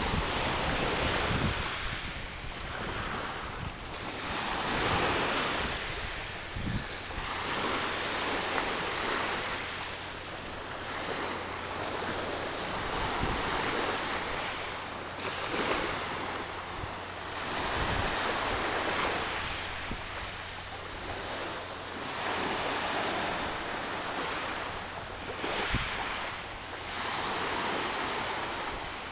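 Small sea waves washing up onto the shore, each surge swelling and fading every few seconds, with wind blowing on the microphone.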